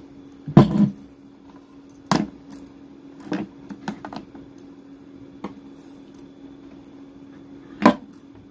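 A few handling knocks and clicks as a large cylindrical LiFePO4 cell is held and turned on a wooden tabletop while meter probes are pressed to its terminals. The strongest comes just under a second in and another near the end, over a faint steady hum.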